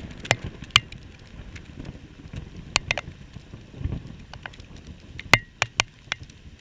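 Raindrops striking a GoPro camera's housing: a dozen or so sharp, irregular ticks over a low rumble of storm noise.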